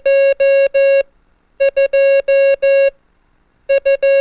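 Morse code tone sending the digit 2, di-di-dah-dah-dah: two short beeps then three long ones on one steady pitch, repeated with a short gap about every two seconds.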